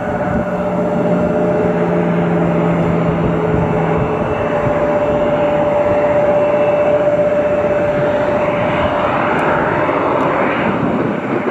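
Jet airliner's engines running loud and steady, with a droning tone under the rushing noise, which grows brighter in the last few seconds.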